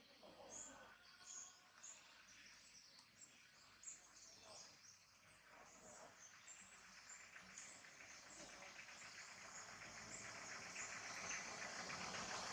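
Faint outdoor ambience: a string of high chirps repeating about twice a second, under a hiss that grows steadily louder from about halfway through.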